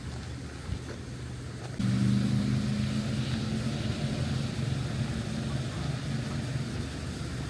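Steady low mechanical hum, like a vehicle engine running, that jumps louder a little under two seconds in and then holds.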